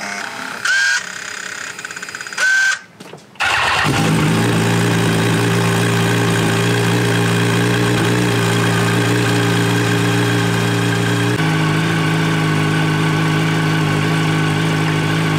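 2004 Yamaha R1's inline-four engine started cold: a couple of short sounds, then the engine catches about three and a half seconds in and idles steadily, the idle note shifting slightly lower near the end. It is idling in neutral on cold oil, which lets the dragging clutch turn the rear wheel slowly.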